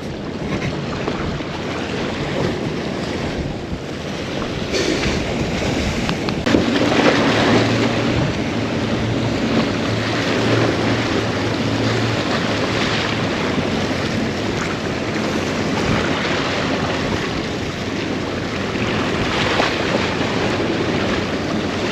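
Wind buffeting the microphone over the wash of surf, a steady rushing noise. In the middle a low steady hum of a passing boat engine rises and fades.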